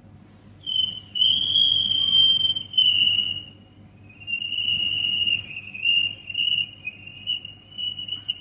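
A man whistling an imitation of a cricket's chirping: a thin, high, wavering trill held in one long stretch, then broken into shorter chirps about two a second near the end.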